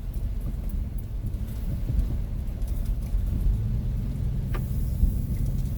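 Steady low engine and road rumble heard from inside a moving vehicle, with one light click about four and a half seconds in.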